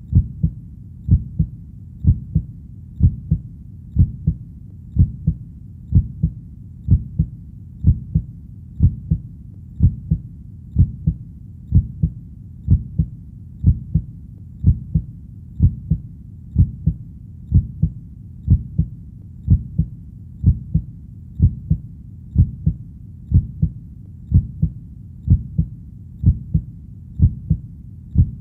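Heartbeat: a steady, low double thump, the familiar lub-dub, repeating about once a second.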